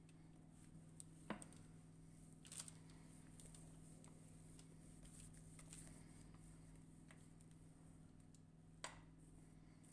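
Near silence over a low steady hum, with a few faint taps and scrapes of a spatula against a glass mixing bowl as thick sponge batter is scraped out onto a paper-lined baking tray; the clearest taps come about a second in and near the end.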